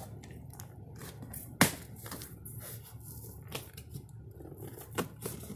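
Cardboard TV shipping box being handled and opened: cardboard rustling and scraping, with a sharp knock about a second and a half in and a smaller one near the end.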